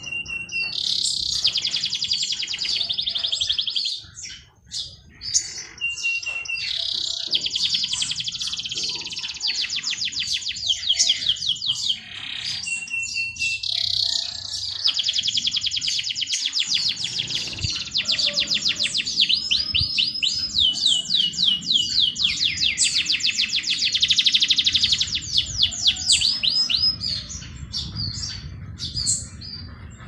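A songbird singing long, high, rapid trilling and chattering phrases lasting several seconds each, some opened by a short steady whistle.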